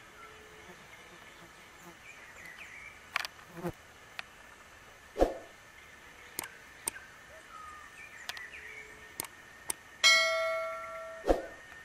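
A loud bell-like ding about ten seconds in, ringing out and fading over about a second: the sound effect of a subscribe-button animation. Before it, faint bird chirps and a few sharp clicks over quiet outdoor background.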